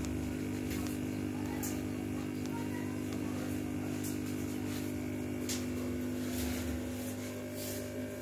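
Aquarium air pump humming steadily as it drives air-lift sponge filters, with a few faint clicks.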